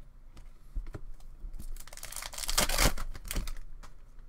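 Trading cards being handled by hand: a run of small clicks and flicks as cards are slid off the stack one by one, with a louder papery rustle about two seconds in.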